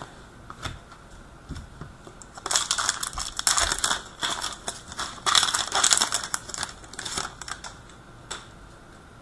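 A trading-card pack's foil wrapper being crinkled and torn open. There are two bursts of crackling, about two and a half and five seconds in, with a few light clicks around them.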